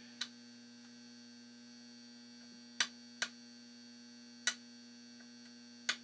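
A handful of sharp, irregularly spaced metallic clicks from a hook pick working the pins inside a Euro cylinder lock, over a steady electrical hum.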